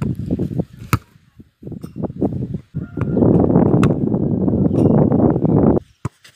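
Loud, rough rumbling noise outdoors, with a sharp thud of a football being kicked a little under four seconds in.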